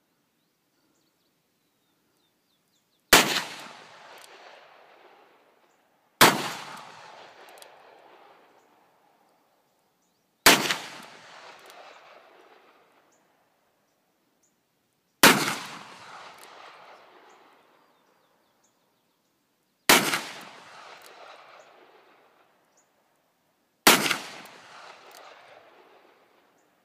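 Six .357 Magnum shots from a scandium-frame Smith & Wesson 386 XL Hunter revolver, fired one at a time three to five seconds apart, the first about three seconds in. Each is a sharp crack followed by an echo that dies away over about two seconds.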